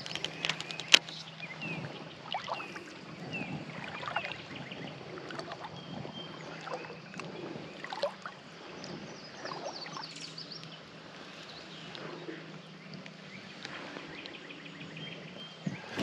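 Creek water sloshing and lapping around a wader, with scattered small ticks and a sharp click about a second in.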